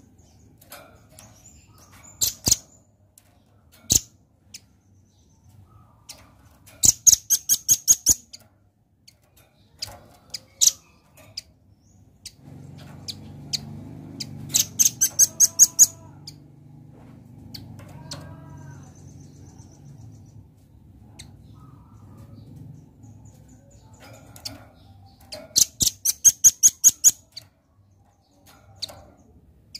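Velvet-fronted nuthatch calling: four bursts of rapid, sharp, high chip notes, about eight a second, each burst lasting a second or so, with single chips between them.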